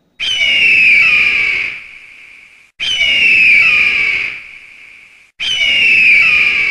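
Bird-of-prey screech sound effect, played three times about two and a half seconds apart, each a long falling scream that fades out.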